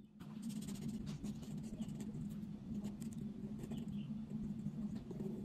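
Black marker pen drawing on paper, its tip rubbing across the sheet in a run of short strokes.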